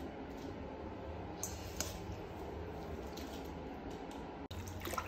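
Steady low room hum with a few faint light clicks; near the end it cuts to faint splashing and clicking.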